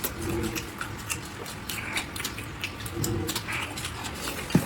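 A person chewing and smacking loudly on food, with many wet mouth clicks and a couple of short closed-mouth hums. There is one sharp louder click near the end.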